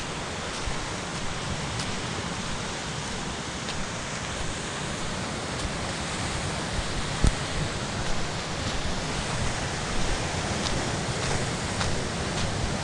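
Surf washing over a rocky shore with wind, a steady rushing noise. Faint footsteps crunch on a stony path about once a second, with one sharper thump about seven seconds in.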